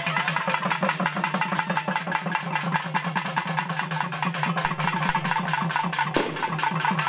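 A group of stick-beaten drums playing a fast, driving rhythm, many strokes a second, with a single sharp crack about six seconds in.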